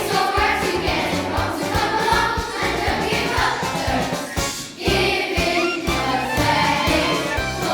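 A song with a group of voices singing over a steady beat and backing music, dipping briefly about two-thirds of the way through before carrying on.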